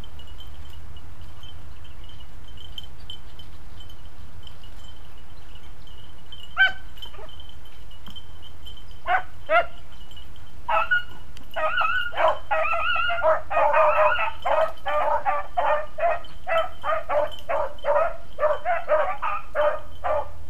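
Beagles baying while running a rabbit's trail: a single yelp about six seconds in, a few barks a few seconds later, then quick, nearly continuous baying from about eleven seconds on.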